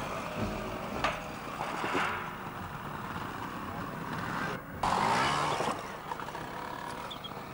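Trials motorcycle engine revving in short rising and falling bursts as the bikes clamber over obstacles, over a background of crowd chatter; the sound breaks off briefly just past halfway, then comes back with the loudest burst of revving.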